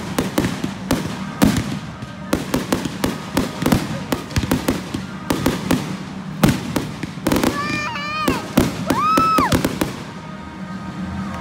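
Fireworks going off in quick succession: a dense run of bangs and crackles, with whistling fireworks rising and falling in pitch between about seven and a half and nine and a half seconds in.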